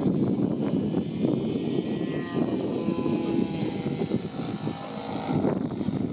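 Lazer 25cc petrol engine and propeller of an 82-inch scale model de Havilland Chipmunk, running as the plane flies past overhead.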